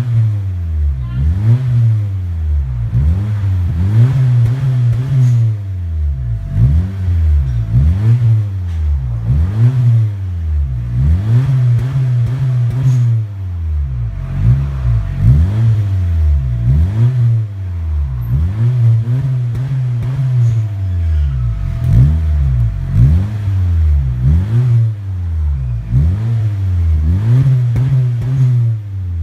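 Honda Civic FC 1.5-litre turbocharged four-cylinder revved over and over through a full titanium exhaust, the pitch climbing and falling back about every two seconds.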